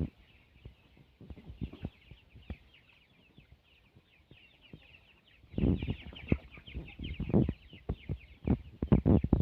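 A flock of chickens calling, many short high calls overlapping without a break. Low knocks and rumbles come in and get louder about five and a half seconds in.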